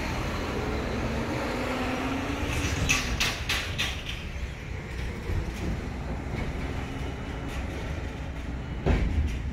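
Parking-lot traffic: a passing vehicle's engine hum rising and falling about one to two seconds in, then a quick run of rattling clicks about three seconds in, over a steady low outdoor rumble. A louder thump comes near the end.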